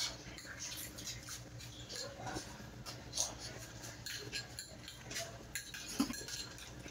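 Metal spoons clinking and scraping in small bowls of hwachae, a scatter of short clicks, mixed with the mouth sounds of two people eating and sipping it.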